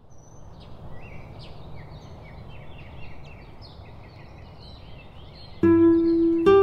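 Songbirds chirping over a steady outdoor hiss. Near the end an acoustic guitar comes in, plucking notes.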